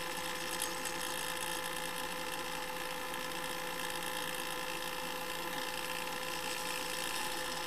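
A steady hiss with a constant buzzing hum under it, unchanging throughout.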